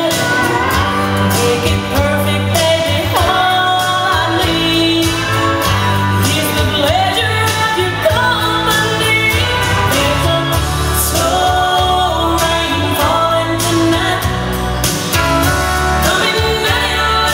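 A song playing: a lead singing voice over a steady beat and backing instruments.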